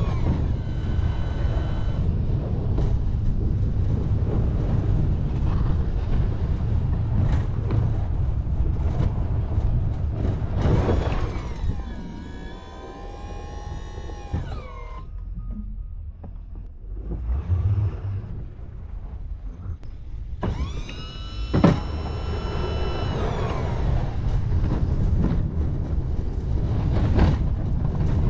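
Plow vehicle's engine running steadily as it reverses pushing snow with a rear plow. Twice a motor whine glides in pitch, about a third of the way in and again past two-thirds, the second one just after a sharp knock; the drone drops quieter in between.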